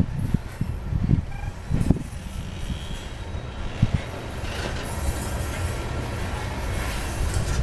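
Freight cars of a coal train rolling past close by: a continuous low rumble of steel wheels on rail, with irregular sharp clanks and clacks in the first few seconds and a rising hiss later on.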